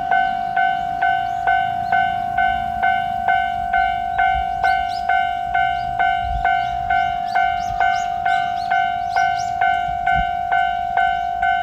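Japanese level crossing warning bell ringing in a steady, even rhythm, about two strikes a second, each strike a clear pitched tone that dies away.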